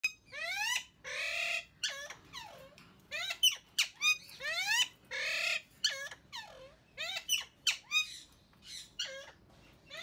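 Alexandrine parakeets calling in a rapid run of loud squawks and screeches: many short calls that rise in pitch, and a few longer harsh ones.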